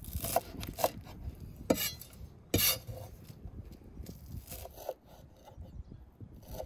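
Chef's knife chopping green onions and herbs on a wooden cutting board: irregular knocks of the blade striking the board, the loudest about two and a half seconds in.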